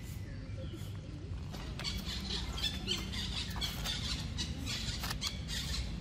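Dry leaf litter crackling and rustling under a macaque's feet from about two seconds in, with a few short high squeaks among the crackles, over a low steady rumble.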